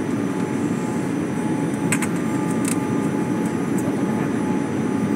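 Steady airliner cabin noise from inside the cabin during descent: engines and rushing air, with faint steady tones over it. A few light clicks come about two seconds in.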